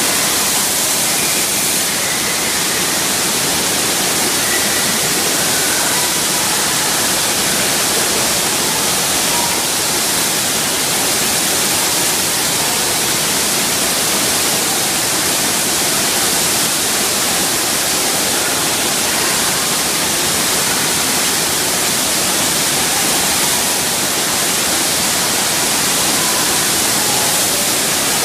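Steady, loud rush of water from an indoor surf-simulator wave ride, a thin sheet of water pumped at speed up and over the curved ride surface.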